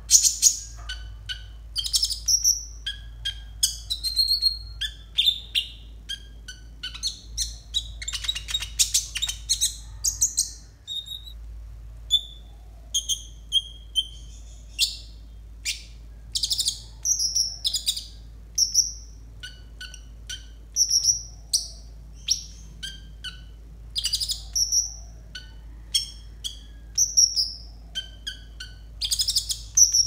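Male konin (kolibri ninja sunbird) chirping and singing: short high twittering calls in quick succession, with a denser run of song around eight to ten seconds in, over a faint low hum.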